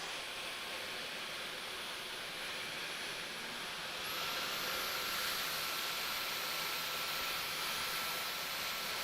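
Dyson cordless stick vacuum running with a steady motor whine and airflow hiss. About four seconds in, its whine steps up in pitch and it gets louder as the motor speeds up to more suction.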